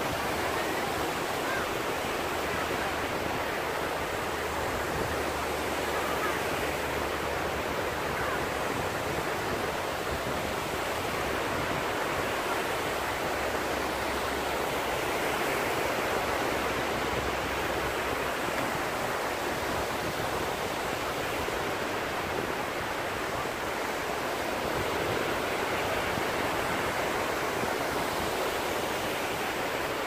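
Small sea waves breaking and washing in over the shallows: a steady hiss of surf that rises and eases slightly.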